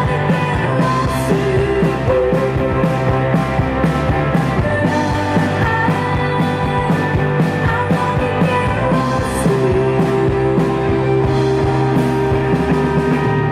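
Rock music with a steady drum beat and held, sustained notes.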